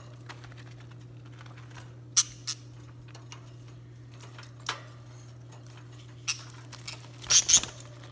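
Scattered sharp clicks and rattles of a wire birdcage as a hand reaches in after a parakeet, with a louder burst of rattling near the end, over a steady low hum.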